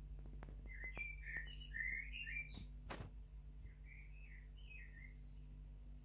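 Male Eurasian blackbird singing: a warbled phrase about a second in that ends in high twittering notes, then a softer run of warbled notes near the end. A single sharp click about three seconds in.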